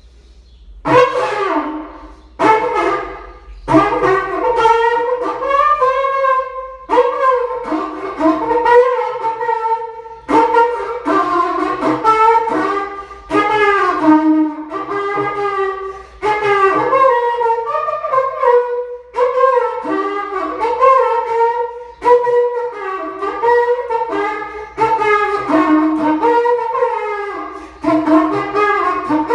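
Berrante, the Brazilian drover's cattle-horn trumpet, blown in a long run of short phrases of bending, wavering notes. It is playing a tune the player calls very hard, of the kind drovers play to challenge one another.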